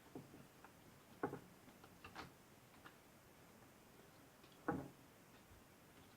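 Faint, scattered clicks and taps from handling laptop RAM modules at the open laptop. The two loudest come about a second in and near five seconds in.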